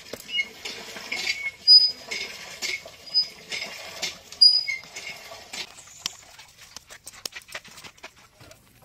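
Hands pressing and patting wet clay onto a clay stove's rim: soft wet pats about twice a second, with short high squeaks among them. From about six seconds in, only light scattered ticks are left.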